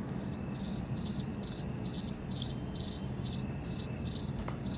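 Loud cricket chirping: a steady high trill pulsing about twice a second, starting and stopping abruptly like an edited-in crickets sound effect.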